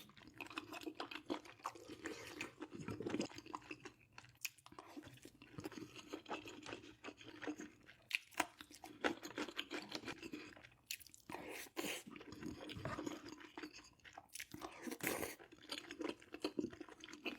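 A person chewing mouthfuls of food close to the microphone, with many small irregular clicks and a few short pauses between mouthfuls.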